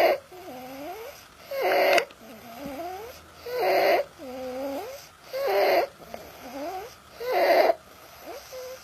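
Stridor: harsh, noisy breaths repeating about every two seconds, with a quieter wavering, pitched sound between them.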